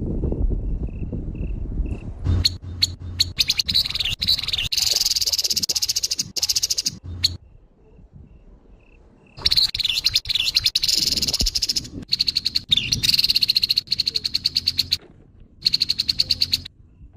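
Grey-headed babbler giving its harsh call: fast, rattling runs of high notes in three long bursts, with short gaps between them.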